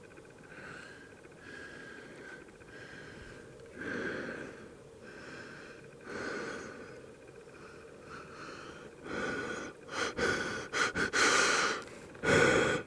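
A man blowing out big, forceful breaths one after another. They start faint and spaced out, then grow louder and come quicker over the last few seconds.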